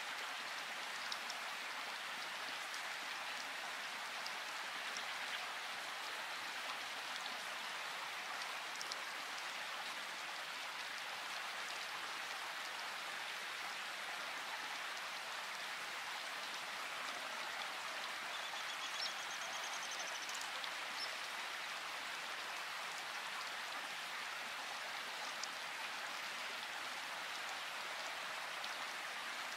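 Steady rain falling: an even hiss with scattered drop ticks.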